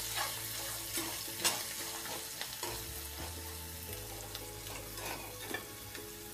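A utensil stirring and scraping a stainless steel pan of frying peanuts, diced potato and green chillies, in irregular strokes over a steady gentle sizzle. The strokes stop about five seconds in, leaving the sizzle.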